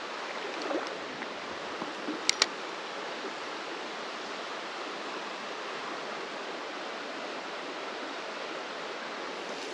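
Small creek flowing steadily: an even rushing hiss of running water, with two brief high ticks about two seconds in.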